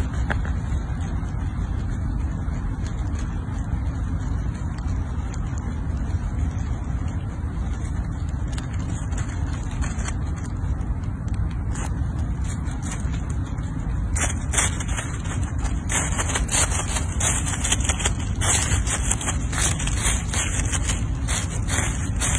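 Dry fallen leaves crackling and rustling in irregular short bursts from about two-thirds of the way through as a squirrel digs in them with its paws, over a steady low rumble.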